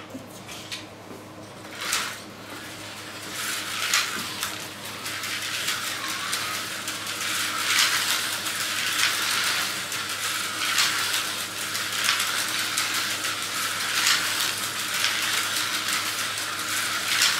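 Tyco HO slot cars racing around a plastic track, their small electric motors and pickups on the rails making a buzzing, hissing whir. It builds up about three seconds in and swells every few seconds as the cars come round.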